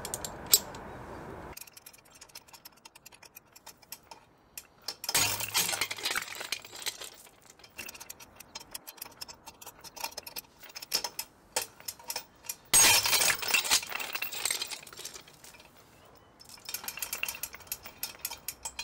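Steel shackles, hook and chain of a crane-scale pull-test rig clinking and rattling in sped-up footage as 3D-printed metal tensile samples are loaded. Two loud sudden jolts, about five seconds in and again after about thirteen seconds, where samples snap under load.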